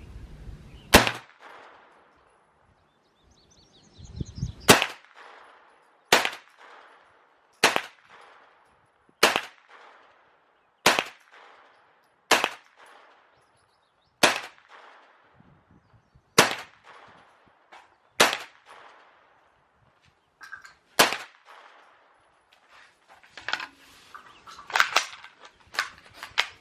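Gunshots at a shooting range: about a dozen single shots, roughly one every one and a half to two seconds, each followed by a short echo. Near the end comes a quicker run of several shots.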